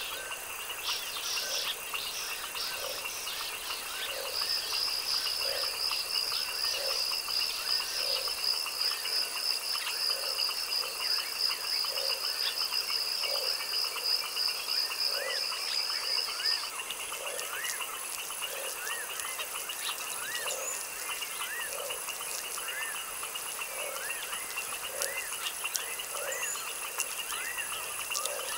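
Frogs croaking in a slow, regular rhythm, about one call every second and a half, over a steady high insect trill. A higher buzzing insect trill runs for the first half and then stops, and small rising-and-falling chirps join in the second half.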